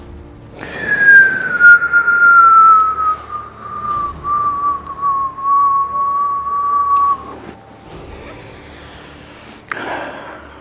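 A person whistling one long, loud note that slides down at first and then holds steady for about six seconds. A short breathy rush of noise follows near the end.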